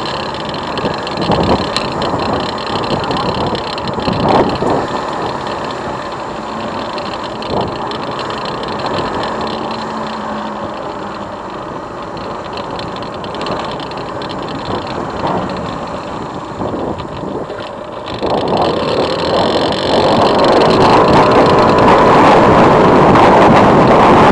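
Motorcycle running at low speed, with a few knocks from bumps; about eighteen seconds in it speeds up and wind rushing over the microphone grows loud.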